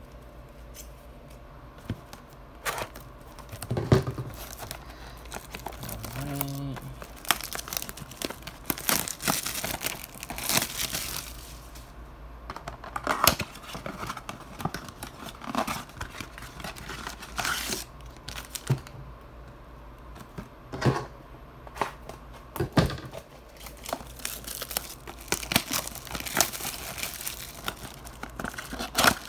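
Trading-card blaster boxes being opened by hand: plastic wrap crinkling and cardboard tearing in irregular bursts, with light taps as the foil packs are pulled out and stacked.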